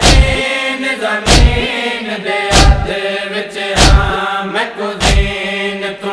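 Noha lament: a chorus of men's voices chanting a long-held refrain. A heavy thump falls about every 1.25 seconds, five in all, keeping the matam (chest-beating) beat.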